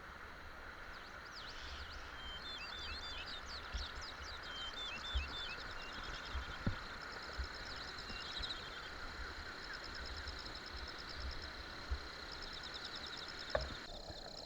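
Mountain stream water running as a steady hiss, with birds chirping and trilling over it and a few soft low thumps.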